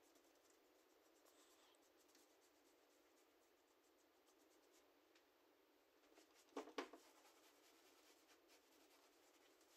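Faint scratching of a large filbert paintbrush stroking acrylic paint across a painting's surface. About six and a half seconds in there is a brief, louder double clack.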